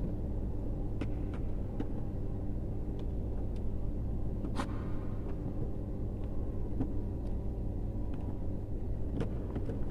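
Steady low background hum, with faint ticks and clicks of stiff copper electrical wires being handled and twisted together by hand and with pliers; one sharper click about halfway.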